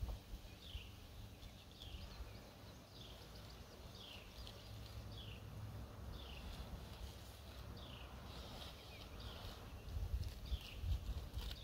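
A bird repeating a short falling whistle about once a second, over a low rumble that grows louder near the end.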